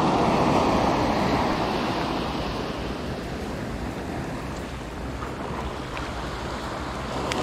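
Small surf breaking and washing up a sandy beach: a steady rush of foaming water that eases in the middle and swells again near the end.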